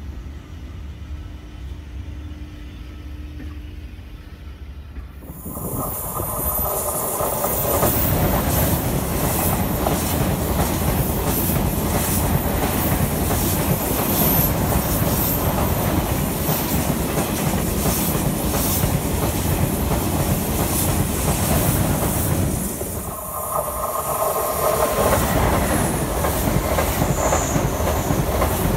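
For about five seconds, a low rumble from a locomotive-hauled Corail coach train pulling away. Then a TGV high-speed train of two coupled sets passes close by at speed: a loud steady rush of wheels on rail and air, thick with rail clicks. Around 23 seconds in there is a brief dip and a change in tone as the middle of the train goes by.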